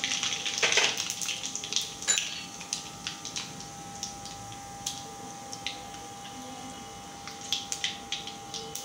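Mustard seeds and cumin sizzling in hot oil for a tadka. The sizzle is loudest in the first couple of seconds after the seeds go in, then settles to a softer sizzle with scattered pops and crackles, which grow more frequent again near the end.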